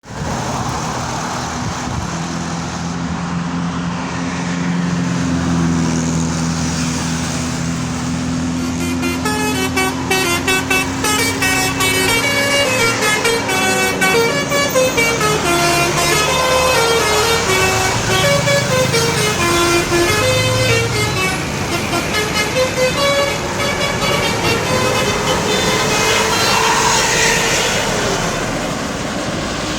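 Multi-tone 'telolet' bus air horn playing a quick stepped tune from about nine seconds in, over bus engine and road noise. The first several seconds hold only the engine and traffic with a steady low drone.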